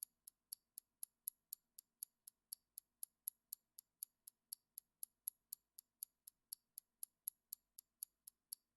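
Faint countdown-timer ticking sound effect, like a clock: quick, even ticks at about four a second, alternating louder and softer, marking the answering time.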